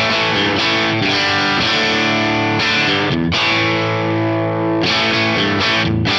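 Electric Stratocaster played through an Axe-Fx III's 1987X Treble amp model with a little overdrive, ringing chords at a very even level. An optical compressor after the amp and cab, on its EL Foil setting, is pulling about 3 to 4 dB of gain reduction.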